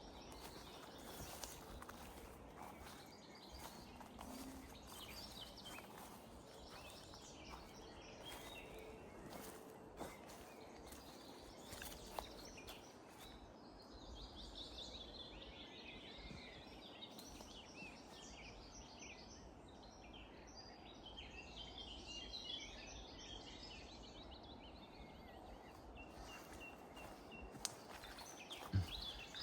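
Quiet outdoor woodland ambience: small birds chirping and singing, most busily through the second half, with a few faint knocks.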